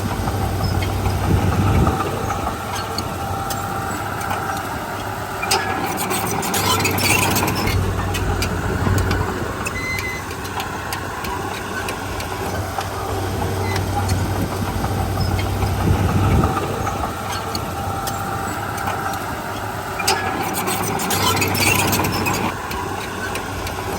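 Diesel engine of a Komatsu D31P bulldozer running steadily, swelling and easing with the load. Twice there is a spell of metallic clatter.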